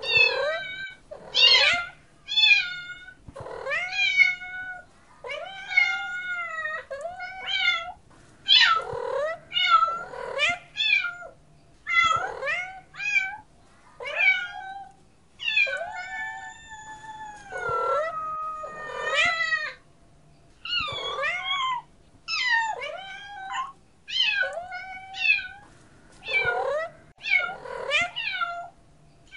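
Domestic cats meowing over and over, roughly one meow a second, each call bending up and down in pitch, with a few long drawn-out meows in the middle.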